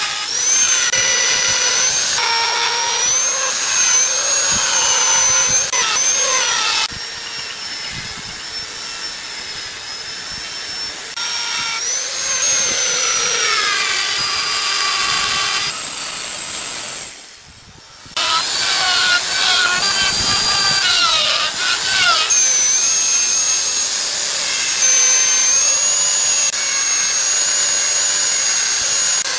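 Handheld electric rotary grinder with a burr carving into hardwood: a loud, high-pitched whine whose pitch wavers and sags as the burr bites into the wood. The sound changes abruptly several times and drops away briefly a little past halfway.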